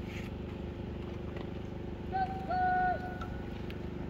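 Distant shouted drill reports from cadets across a parade field: a short call and then a longer, drawn-out one, each held on a single pitch, about two seconds in.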